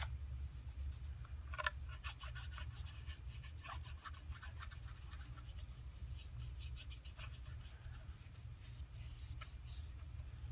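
Light scratching and scattered small clicks of hands and tools working on a smartphone's parts, over a steady low hum.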